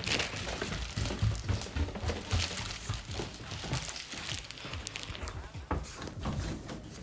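Rustling and handling noise from a phone being carried by someone walking, with soft thuds of footsteps.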